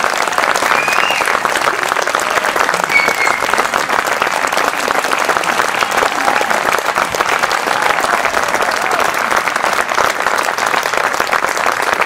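Audience applauding, a dense and steady clapping that holds at one level throughout.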